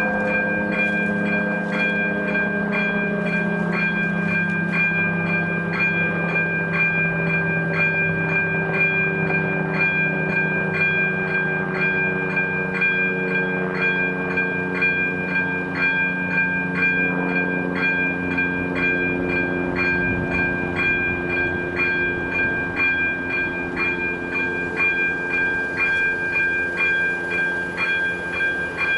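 Electronic warning bell of an AŽD 97 level crossing ringing steadily at about two strokes a second, while a train passes the crossing with a low engine drone whose pitch slowly falls.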